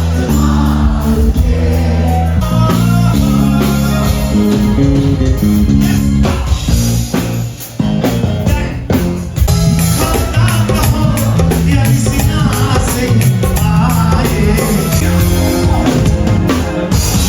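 A live band playing pop-rock with singing, electric guitar, bass and drum kit, with a brief drop in level about eight seconds in.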